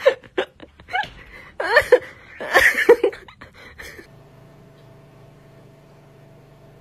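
A person laughing in short bursts, with a few rising and falling cries. After about four seconds this gives way to a low, steady hum.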